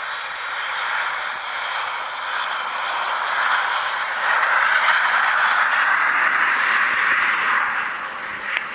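Jet engines roaring as a formation of Snowbirds CT-114 Tutor jets with a fighter jet flies past, swelling to its loudest in the middle and then easing off. A short sharp click comes near the end.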